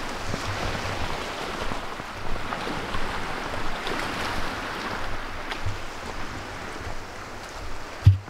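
Footsteps crunching over thin snow and pine needles, about two steps a second, over a steady rush of wind and lake waves; a single thump near the end.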